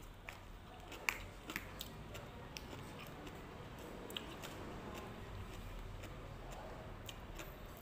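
Someone chewing green papaya salad, with scattered light clicks of a utensil against a clear plastic bowl; the sharpest click comes about a second in.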